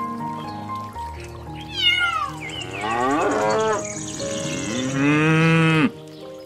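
Recorded animal calls over light background music: a cat meowing, sliding down in pitch, about two seconds in, then a long cow moo about five seconds in that cuts off abruptly.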